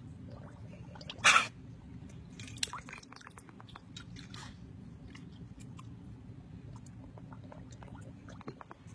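Husky blowing bubbles with its muzzle in a stainless-steel water bowl: irregular bubbling, splashing and dripping water, with one loud burst about a second in.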